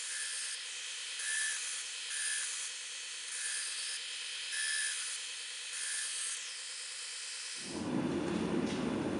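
Belt grinder running with a steady hiss while a small knife blade is pressed against the abrasive belt in short passes about once a second, each pass adding a brighter grinding whine. Near the end it cuts suddenly to a louder, deeper steady rushing noise.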